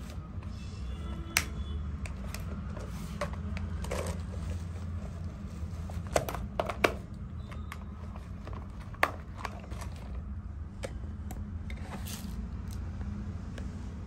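A small screwdriver and fingers clicking and scraping on the plastic chassis of a toy RC car as the battery-cover screw is undone and the car is handled: scattered sharp plastic clicks, a few louder ones around the middle, over a steady low hum.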